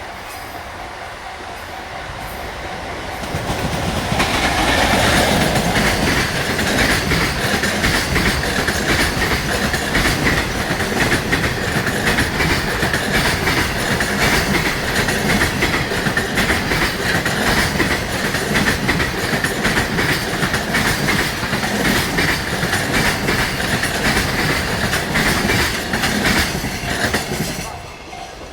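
JR Freight EF65 electric locomotive and a long train of container flatcars passing a level crossing. A steady crossing-bell tone is heard first; from about four seconds in the train goes by loudly, its wheels clacking over the rail joints, and it tails off near the end.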